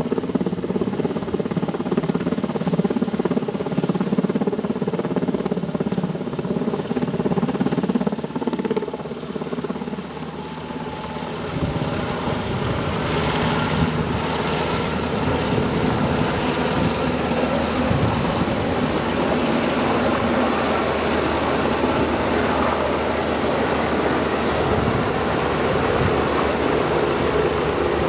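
Helicopter rotor and engine noise overhead, steady and continuous, as the helicopter hovers and lifts a heavy sling load on a long line. About eleven seconds in, the sound changes and takes on more low rumble.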